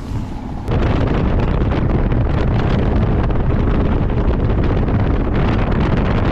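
Boat running at speed across the water, with heavy wind buffeting the microphone. The steady roar starts abruptly about a second in.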